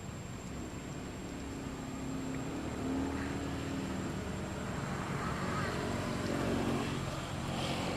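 A motor engine running steadily and growing gradually louder, as a vehicle comes closer.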